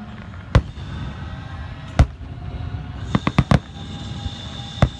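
Aerial fireworks shells bursting with sharp bangs: one about half a second in, another at two seconds, a quick run of four bangs just after three seconds, and a last bang near the end.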